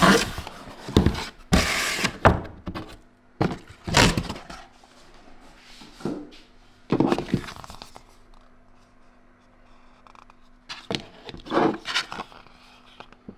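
Handling noise from a hard plastic storage box and paper cards: a series of irregular thunks and scrapes of plastic, with the rustle of card being picked up.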